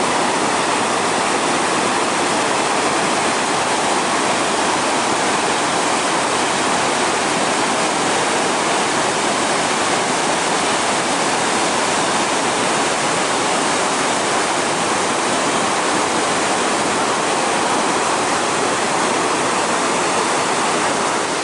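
A large waterfall's steady rush of falling water, a dense unbroken hiss with no let-up.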